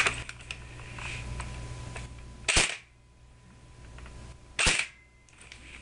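Pulse R76 (AK-74U) electric airsoft gun fired twice, about two seconds apart, each a short sharp burst. It is muffled by a homemade foam-lined suppressor and sock sleeves over the motor grip and magazine, and the owner calls it very quiet.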